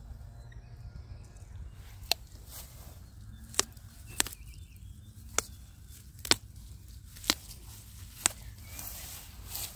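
Dandelion stems snapping as the flowers are plucked by hand: about eight short, sharp snaps, roughly one a second, over a low steady rumble.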